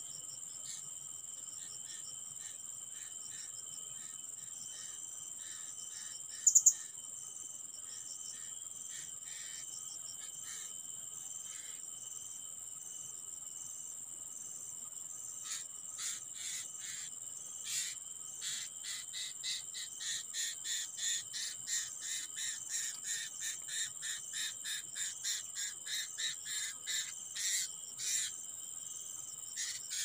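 Forest insects droning steadily in several high, unbroken tones. A brief, loud double click comes about six seconds in. From about halfway through, a run of short sharp sounds, about two a second, grows louder toward the end.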